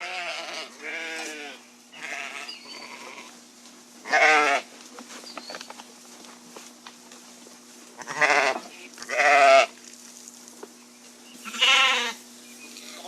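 Sheep bleating, about seven short quavering bleats in all. The loudest come about four, eight and nine seconds in and again near the end, over a steady low hum.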